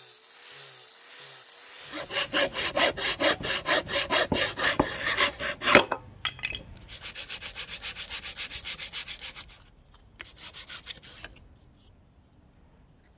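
A knife blade scraping along a thin strip of wood in quick, rhythmic strokes, about four a second. The strokes are loudest in the first half, turn lighter after a short break, and die out with a few last rubs about eleven seconds in.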